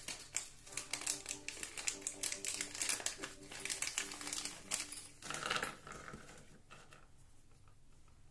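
Clear plastic bag crinkling while small plastic board-game pawns click and rattle against each other as they are handled, a rapid run of clicks with a louder rustle about five seconds in, then much quieter.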